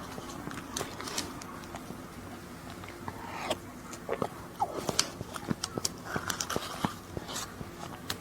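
Close-miked biting and chewing of a matcha lava dessert: scattered sharp mouth clicks and smacks, busier and louder from about three seconds in.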